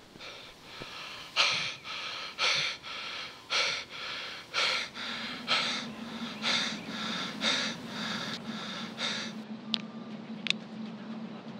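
A man breathing hard and fast after a run, heavy out-of-breath pants about two a second, which stop about nine seconds in. Two short clicks follow, and a low steady hum runs underneath from about halfway.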